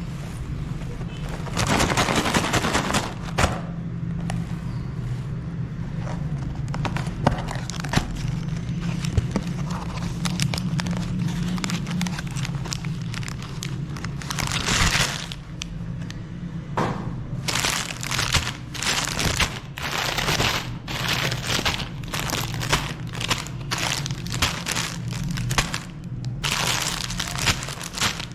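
Chocolate bars being crushed in a meat grinder: repeated cracking and crunching over a steady low hum, with the sharp cracks coming thicker in the second half.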